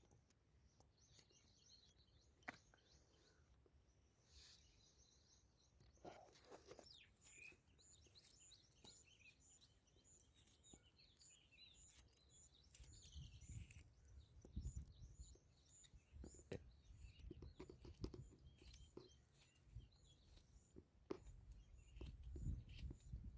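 Near silence with faint birds chirping in the background, including a short high chirp repeated about twice a second through the second two-thirds. There are a few soft clicks, and low muffled rumbling in the second half.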